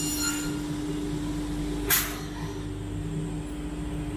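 Makita oscillating multi-tool running with a steady buzz, its cutting whine fading within the first half second. A single sharp knock comes about two seconds in.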